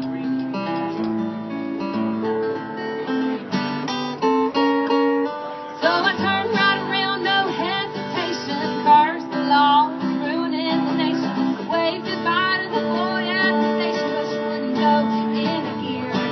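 Acoustic guitar played live, with a singing voice coming in about six seconds in over the guitar.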